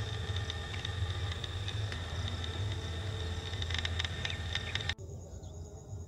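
Dusk field ambience: insects chirring high and steady over a low steady hum, with a patch of faint clicking near four seconds. About five seconds in the sound cuts off abruptly to a quieter scene in which a thin, high insect trill carries on.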